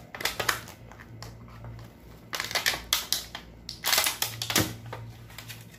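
Thin clear plastic clamshell food container being pried open: its lid crackles and snaps in several quick clusters of clicks as the fingers work it loose.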